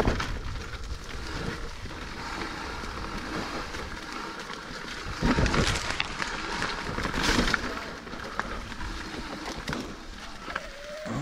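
Mountain bike riding over a rough dirt trail: tyres rolling over the ground with scattered clicks and knocks, and two louder surges of noise about five and seven seconds in.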